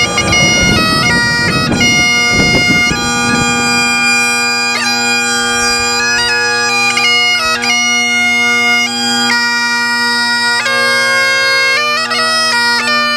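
Bagpipes playing a tune over a steady drone, with a noisy low rumble underneath for the first four seconds.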